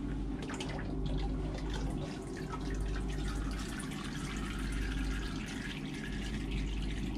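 Used engine oil trickling and dripping from a removed diesel-generator oil filter into a plastic bucket as the filter is drained, over a steady low machinery hum.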